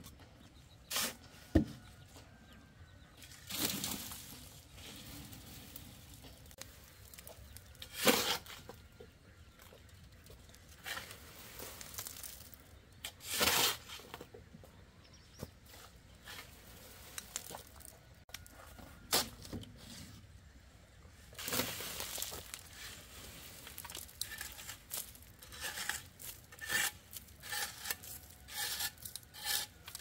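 Soil being scraped and pushed across a wire-mesh sieve with a long-handled tool: irregular rasping scrapes, coming in quicker strokes near the end.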